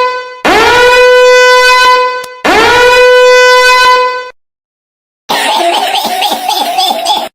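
Horn-like comedic sound-effect blasts: two held, steady-pitched honks of about two seconds each, then after a short gap a rougher, wavering sound for about two seconds.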